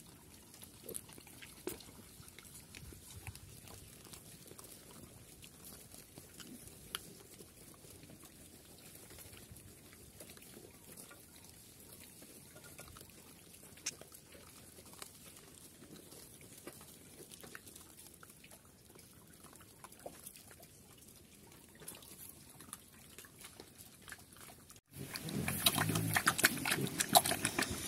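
Pigs feeding: faint, scattered rustles and small clicks of piglets rooting in dirt, then, about 25 seconds in, a sudden change to a sow eating from a trough, loud and fast chewing and smacking at her feed.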